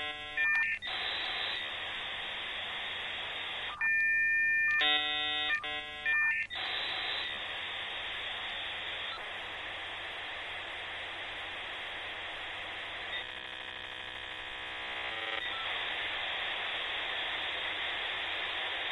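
Dial-up modem handshake. It opens with short bursts of many stacked tones and a steady two-note tone, broken by harsh hiss. From about six seconds in, the hiss settles into one long stretch of scrambled data noise, with a band of many steady tones laid over it for a couple of seconds past the middle.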